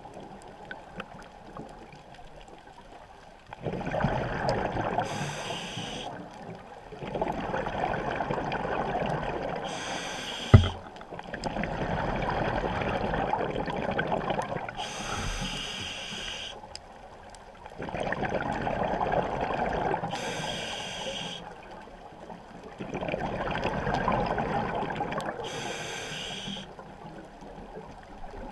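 Scuba diver breathing through a regulator underwater, about five slow breaths: each a long hissing draw followed by a rush of exhaled bubbles. A single sharp knock about ten seconds in.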